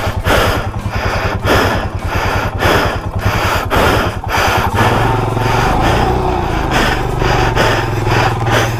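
Motorcycle engine running under load on a rough off-road climb, with a repeated clatter about twice a second. About five seconds in, the engine note changes and settles into a steadier drone.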